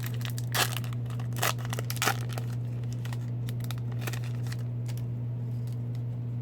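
A hockey card pack's wrapper being torn open and crinkled, with a few sharp rips in the first couple of seconds and then quieter rustling. A steady low hum runs underneath.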